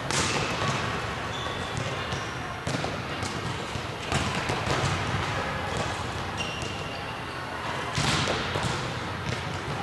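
Volleyball spikes: a sharp slap of hand on ball about every four seconds, three in all, echoing through a large training hall. Smaller knocks of balls hitting the floor come between them.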